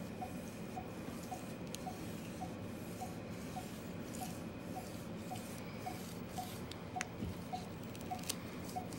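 Faint short beeps, about two a second, from the KoalaPad drawing program left running on the computer, with light crinkling and rubbing of adhesive vinyl being pressed down by hand.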